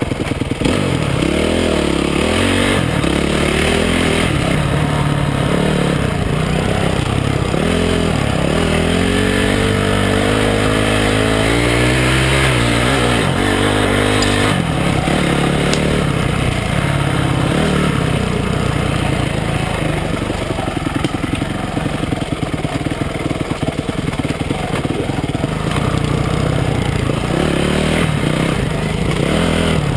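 Honda CRF250X dirt bike's four-stroke single-cylinder engine under way, revving up and down as the throttle is worked. In the middle comes a long rise in pitch that breaks off suddenly.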